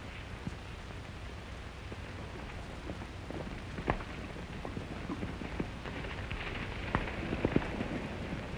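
Horses' hooves clopping irregularly on dry ground, more often from about four seconds in, over the steady hiss of an old film soundtrack.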